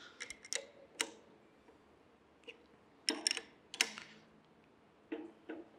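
Scattered light clicks and clinks of metal hardware on the crank of a hand-cranked forge blower as the nut holding its new wooden handle is tightened: a few in the first second, a cluster around three to four seconds in, and two more near the end.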